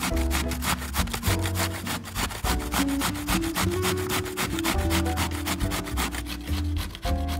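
Zucchini being grated on a hand grater: quick, evenly repeated rasping strokes, several a second, over soft background music.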